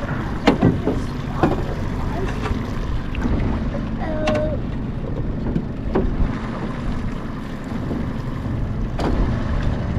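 Wind rumbling on the microphone in a small fishing boat, with several sharp knocks as a fish is played and brought to the net.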